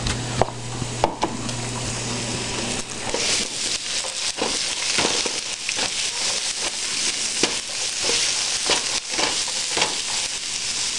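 Diced rutabagas sizzling as they fry in oil in a hot skillet, with a spatula scraping and stirring them against the pan in many short strokes. The sizzle grows louder about three seconds in.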